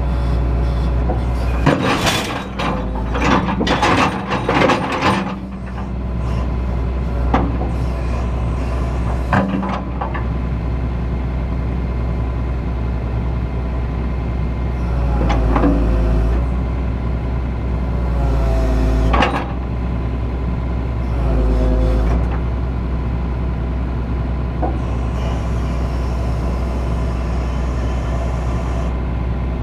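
Excavator's diesel engine running steadily, with a cluster of metal clanks and knocks in the first few seconds as the machine works, and a few short squeals in the middle.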